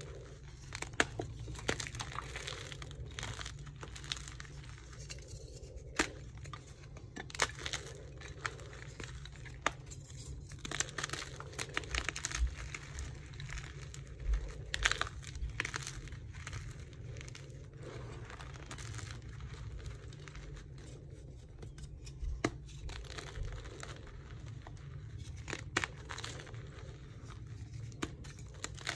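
Dyed gym chalk crushed and crumbled in bare hands: soft, crunchy breaking with frequent sharp cracks as chunks snap apart.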